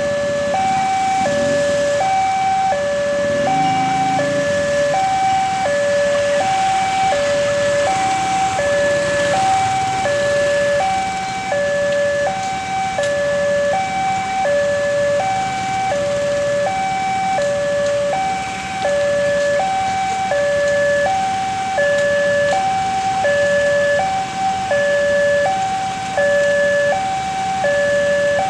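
Railway level-crossing alarm sounding while the barriers are down, its electronic warning tone alternating steadily between a higher and a lower pitch.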